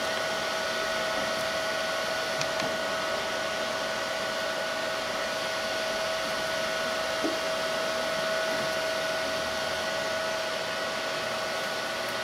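RTI Vortex 4200 wide-format inkjet printer running while opened for service: a steady fan whir with a constant hum tone over it.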